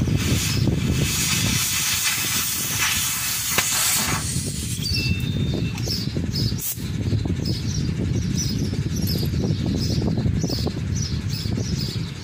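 Oxy-fuel cutting torch hissing as it cuts steel plate, with a steady low rumble under it. The hiss stops abruptly about four seconds in, as the gas supply runs out. After that a small bird chirps over and over, about twice a second.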